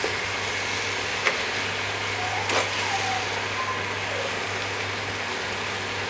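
Steady kitchen cooking noise, an even hiss over a low hum, broken by two sharp clicks about a second and two and a half seconds in.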